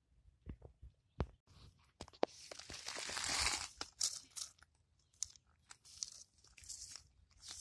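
Fingers digging and scraping through coarse sand and gravel, small pebbles clicking against each other. A longer scrape comes about two to three and a half seconds in, between sharp clicks.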